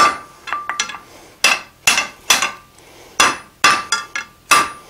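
Hand hammer striking a hot 5/8-inch square iron bar on the anvil, about ten blows at a steady working pace, some followed by a brief metallic ring. The smith is upsetting the bend into a sharp square corner.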